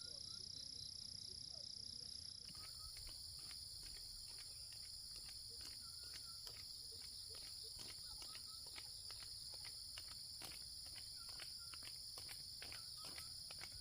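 Steady high-pitched drone of insects, which grows stronger about two and a half seconds in. From then on there are irregular light clicks and crackles, a few each second, with faint short chirps here and there.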